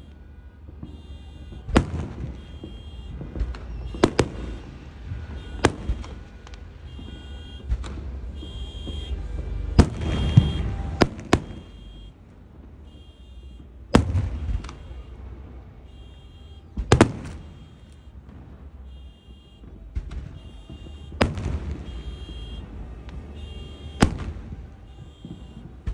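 Fireworks going off with sharp bangs every few seconds, a quick cluster of them midway. Under them a car alarm beeps in a steady on-off pattern, set off by the noise of the blasts.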